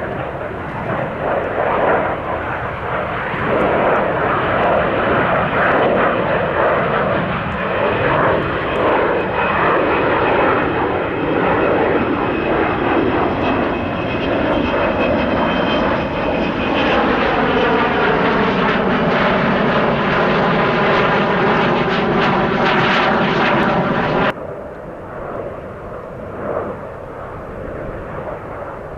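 Avro Vulcan XH558's four Rolls-Royce Olympus turbojets during a flypast: loud jet noise with a whine over it, its pitch sliding down over several seconds as the bomber passes. About four seconds before the end the sound cuts off abruptly to fainter, more distant jet noise.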